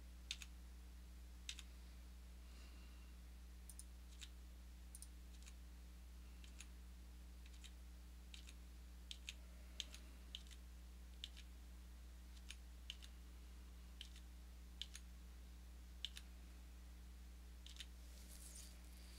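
Sparse single clicks of a computer mouse and keyboard, roughly one a second with a quick pair near the middle, over a faint steady low hum.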